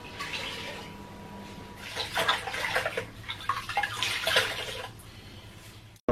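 Water running and splashing, louder and more irregular from about two seconds in, then fading.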